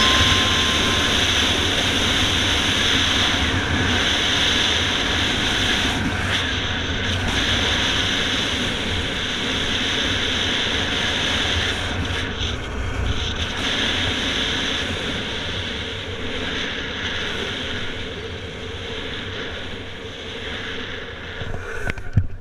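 Wind rushing over the camera microphone and urethane longboard wheels rolling on asphalt at speed down a steep road, a steady roar that slowly fades in the last part. A few sharp knocks come near the end.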